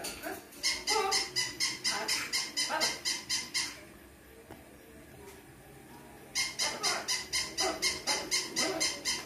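Electronic toy dog sounding in two runs of rapid, evenly repeated electronic chirps, about five a second, each run lasting about three seconds, with a quieter pause between them.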